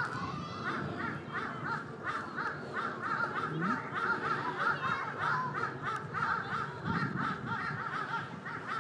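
Birds calling over and over, several short arched calls a second, overlapping one another.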